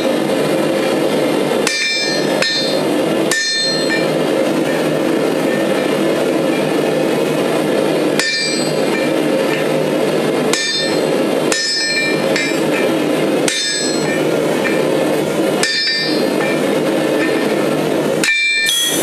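Hand-hammer blows on red-hot axle steel held over a hardy tool on an anvil. There are about ten strikes at uneven intervals, each with a high metallic ring, over a steady rushing noise.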